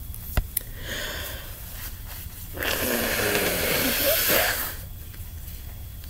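A person with a head cold blowing a runny, stuffy nose into a tissue: one long, noisy blow of about two seconds in the middle, after a sharp click and a softer rush of air near the start.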